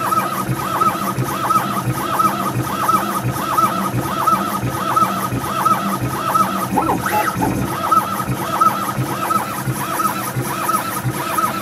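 Stepper motor drives of a CNC-converted MBF550 milling drill whining as the axes make short repeated moves, the pitch rising and falling about two or three times a second over a low knocking from the machine.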